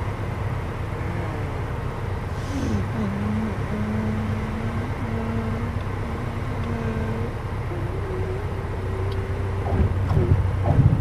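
Cabin drone of a Piper Cherokee Warrior's four-cylinder piston engine and propeller at low landing power, through the touchdown and rollout. From about three seconds in, a steady tone sounds above the drone and shifts in pitch a couple of times. Voices come in near the end.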